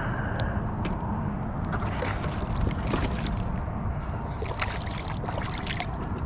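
Small water splashes and sloshing at the side of a plastic kayak, with scattered light clicks, over a steady low wind rumble on the microphone.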